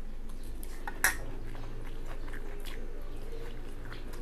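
Eating sounds: quiet chewing and faint handling of food on plates, with one sharp clink of a spoon on a plate about a second in.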